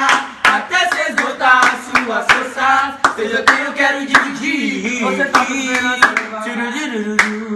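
Hand claps beating an uneven rhythm, roughly two or three a second, under a voice singing.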